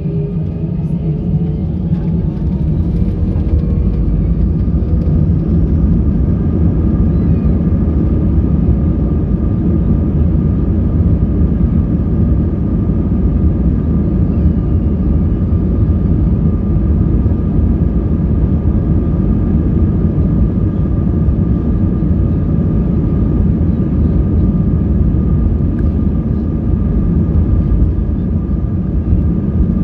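Airbus A320's twin turbofan engines spooling up to takeoff thrust, heard from the cabin: a whine rising in pitch and loudness over the first few seconds, then a steady loud roar with a constant whine.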